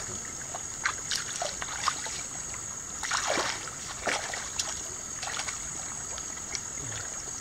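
Hands splashing and sloshing in shallow river water: many small irregular splashes, with a couple of louder ones about three and four seconds in, over a steady high-pitched hiss.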